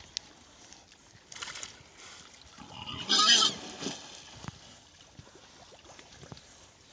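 A pig gives one loud, short squealing call about three seconds in, with a brief splash or rustle of water a little before it.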